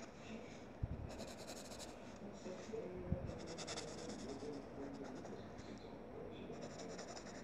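Pencil scribbling on paper, colouring in with rapid back-and-forth strokes, in three spells of about a second each. There are two soft knocks in the first half.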